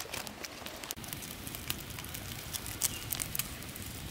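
Wood fire crackling under a grilling fish, with irregular sharp pops and snaps from the embers, a few of them louder.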